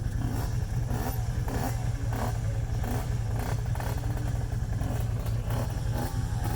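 Off-road vehicle's engine running with a steady low drone, with repeated knocks and rattles about every half second.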